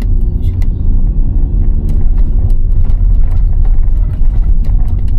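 Car driving slowly, a steady low engine and road rumble with scattered ticks. The engine's drone rises slightly in pitch in the first few seconds.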